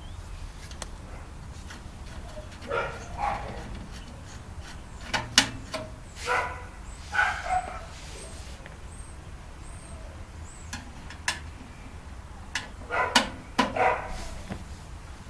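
A dog barking in three short bouts of two or three barks each, with a few sharp clicks between the bouts.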